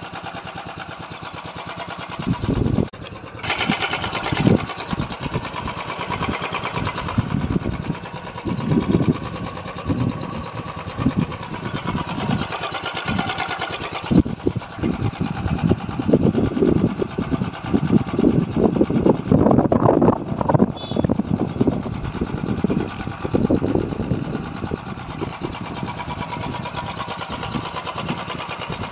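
Royal Enfield Classic 350's single-cylinder engine running, with a rapid, even ticking beat that grows louder for a while in the middle.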